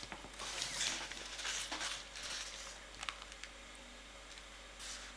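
Soft handling sounds of hands twisting strips of puff pastry on baking paper: faint rustles, mostly in the first half, and a few light taps.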